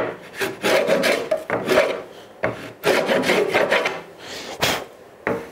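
Hand router plane's blade paring across the bottom of a dado in a wooden board: a series of short scraping strokes with brief pauses between them, shearing the wood fibres off in light cuts.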